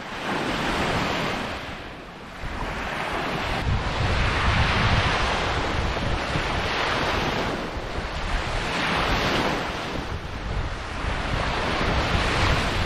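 Small lake waves breaking and washing up on a sandy shore, swelling every two to three seconds, with wind buffeting the microphone.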